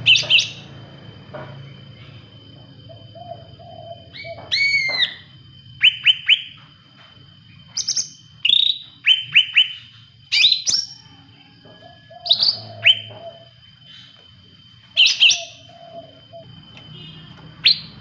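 Caged cucak rante, a leafbird, singing in loud short whistled and chirped phrases with pauses between, some phrases followed by soft low warbling notes. A faint steady high-pitched tone runs underneath.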